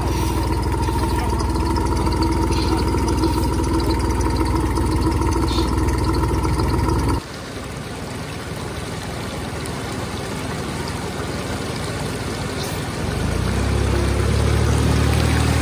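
Small farm tractor's engine running steadily. About seven seconds in the sound cuts off abruptly to a steady hiss, and near the end an engine is heard running again, louder.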